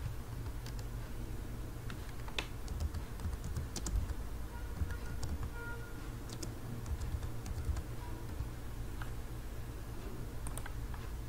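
Computer keyboard typing in scattered, irregular keystrokes over a steady low hum.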